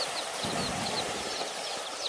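Chicks cheeping: many short, high peeps overlapping in quick succession over a steady hiss.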